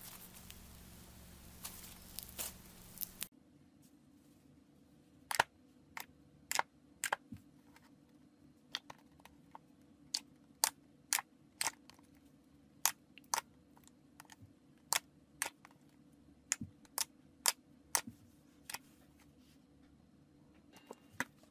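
Foamy slime squished by hand with a fine crackling hiss. After a cut about three seconds in, thick glossy slime is pressed and poked with the fingers, giving sharp clicking pops about one to two times a second as air pockets burst.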